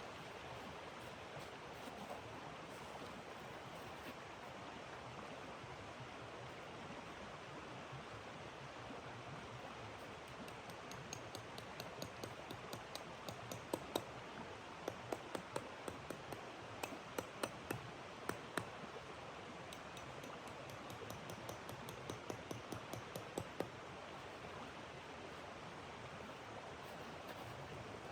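A steady rushing noise, with a run of sharp, irregular crackling clicks starting about 11 seconds in and dying away a few seconds before the end.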